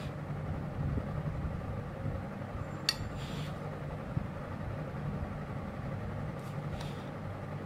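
Steady low hum of a running engine or motor, with one sharp click about three seconds in.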